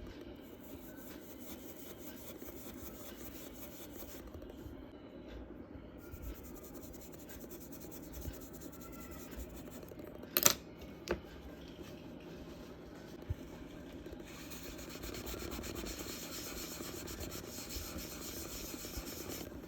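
Charcoal rubbing and shading on drawing paper: a steady, faint scratchy rasp, with two sharp clicks about ten seconds in. The strokes get brighter and hissier for the last five seconds or so.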